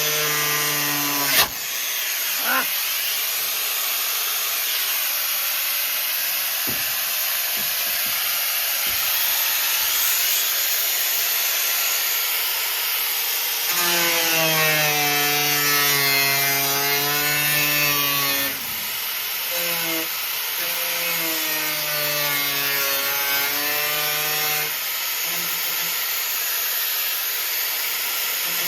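A high-speed electric power tool, most likely an angle grinder, running against steel tube. Its motor whine sags and recovers in pitch as it is loaded, over a steady hiss. There is a sharp knock about a second and a half in.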